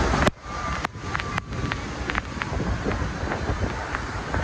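Close-up rush of Niagara Falls as a steady noisy roar, with wind buffeting the microphone. There is a brief dip about a third of a second in and a scatter of light clicks.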